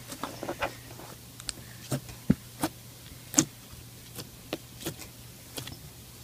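Pink slime being squeezed and pressed by hand, giving short, sharp clicks and pops at irregular moments, about two a second, over a faint steady hum.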